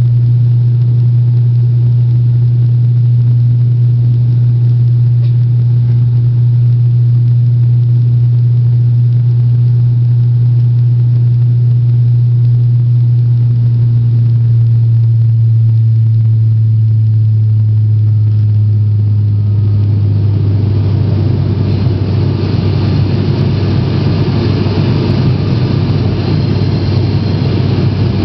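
Turboprop airliner engine and propeller drone heard inside the cabin during the climb: a loud, steady low hum. About two-thirds of the way through its pitch drops slightly and a broader rushing noise grows louder.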